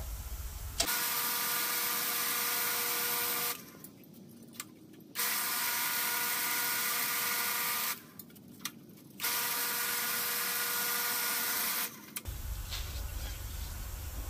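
Powered roller bender running in three stretches of about three seconds each, with short pauses between, as 1-inch 14-gauge square steel tubing is rolled through its dies to put a slight arch in it. The motor gives a steady whine under a rushing noise.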